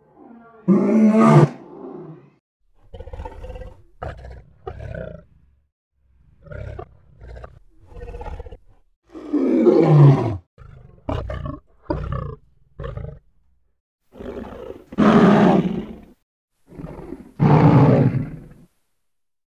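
Lion roaring in a series of calls: four long, loud roars, one falling in pitch, with short grunts between them.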